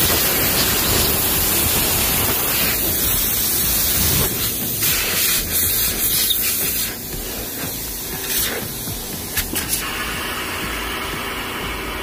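Compressed air hissing out of leaks in a Hunter TC3250 tire changer's pneumatic system, at a crack and where the red air hoses join. It starts suddenly and loudly, eases about seven seconds in, and a few short clicks come near the end. The leaks bleed off the machine's air pressure.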